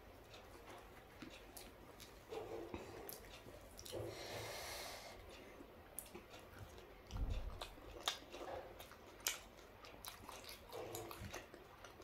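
Close-miked chewing of soft dosa, with wet mouth clicks and smacks, and a short noisy breath about four seconds in. A dull low thump a little past halfway is the loudest moment.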